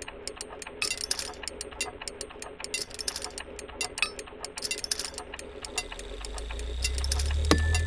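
Mechanical sound effects for a cartoon contraption: rapid, irregular clicking and rattling. A low rumble builds over the last two seconds and ends in a sharp clank that rings briefly.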